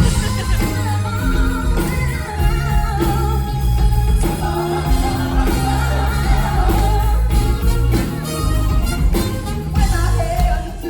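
Pop song with a sung melody over a steady bass and beat.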